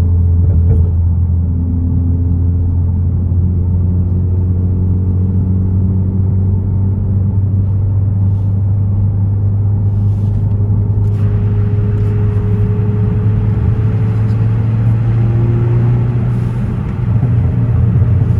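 2014 Ford Focus ST's turbocharged 2.0-litre four-cylinder engine droning steadily on a cruise, its pitch drifting slowly, heard from inside the moving car. Road and wind noise grows louder about eleven seconds in.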